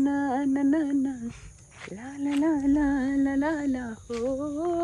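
A woman singing a tune in long held notes, in three phrases with short breaks between them, the pitch rising for the last phrase.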